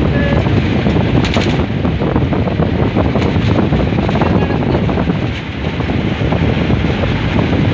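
Wind buffeting the microphone over the rumble of a vehicle driving along a road, steady and loud.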